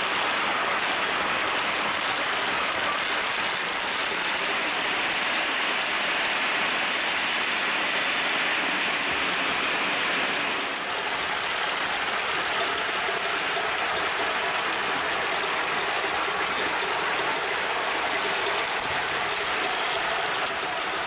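Hundreds of glass marbles pouring out of a tipping container and rolling down wooden marble-run tracks: a dense, steady clatter. About halfway through it dips briefly, then carries on a little lower and fuller.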